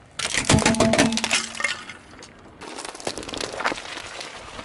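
Hard plastic toy monster truck cracking and snapping apart under a car tyre, a quick run of sharp breaking sounds in the first two seconds, followed by a second, quieter spell of crackling crunches.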